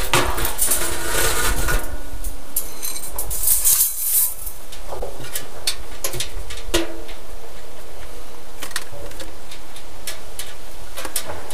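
Sheet-metal parts of a tin tipi stove being handled and fitted together. There is dense scraping and handling in the first few seconds, then a series of separate sharp metal clinks, some ringing briefly, over a steady low rumble.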